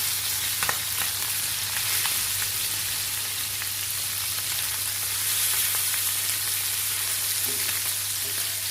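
Chicken thighs shallow-frying in hot olive oil in a pan, giving a steady sizzle, with a few light clicks in the first couple of seconds.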